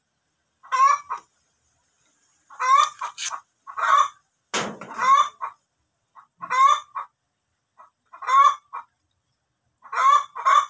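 Chickens clucking: short pitched calls repeating about once a second. A single sharp knock sounds about four and a half seconds in.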